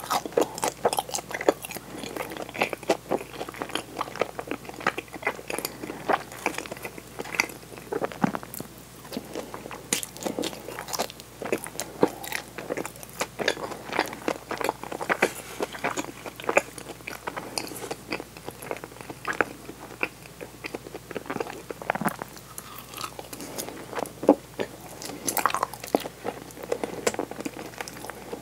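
Close-miked biting and chewing of butter-fried daifuku mochi, with many short wet mouth clicks and crackles that come irregularly throughout.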